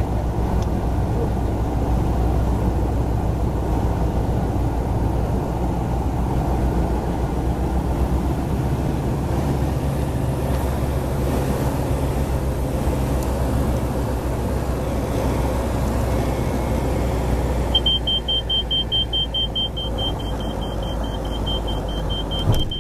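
Piston engine and propeller of a light single-engine aircraft droning steadily inside the cockpit through the final approach, touchdown and landing roll, with part of the drone dropping away about halfway through. A steady high beep joins for the last few seconds.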